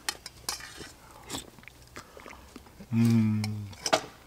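A man chewing a mouthful of steak stew, with a few sharp clicks and mouth sounds, then a hummed "mm" of approval about three seconds in.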